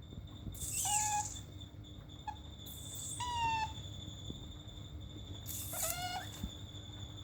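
Otter giving three short, high squeaky calls about two and a half seconds apart, each with a little breathy hiss.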